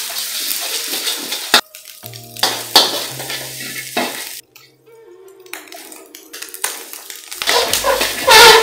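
Metal spatula scraping and clanking against a steel wok while eggs are scrambled and then stir-fried with vegetables, with frying sizzle. The strokes come every second or so and are loudest near the end. Background music plays underneath.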